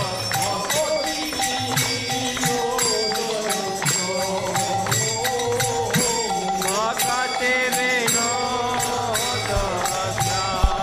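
Gaudiya Vaishnava kirtan: voices sing a slow, gliding Bengali devotional melody. A jingling hand percussion keeps a steady beat of about two to three strikes a second.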